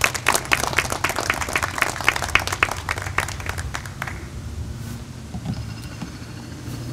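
A small audience applauding with scattered hand claps, dying away about four seconds in.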